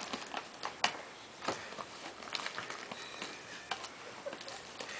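A dog tearing and pawing at a gift-wrapped present: irregular light crackles and small clicks of wrapping paper being ripped, with a sharper crack about a second in.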